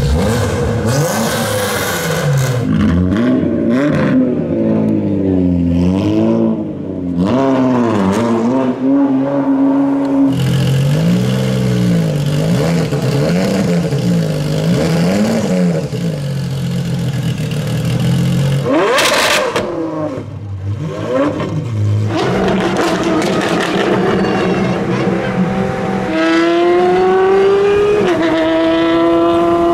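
Apollo Intensa Emozione's naturally aspirated V12 revving in a series of short clips: repeated throttle blips rising and falling in pitch, a hard rev that climbs steeply about two-thirds through, and a steadier high-revving note near the end.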